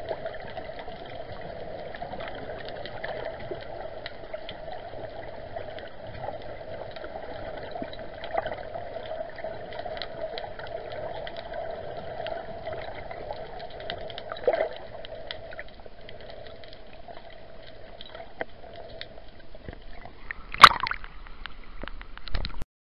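Underwater sound heard through an action camera's waterproof housing: a steady, muffled hiss with many faint clicks and a brief knock midway. About twenty seconds in there is a sharp, loud splash as the camera breaks the water's surface.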